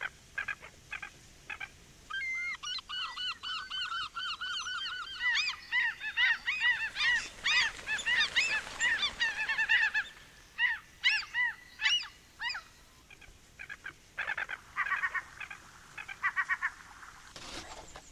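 A flock of gulls calling in flight: many short, repeated cries overlapping into a busy chorus that thickens in the middle and thins out to scattered calls near the end.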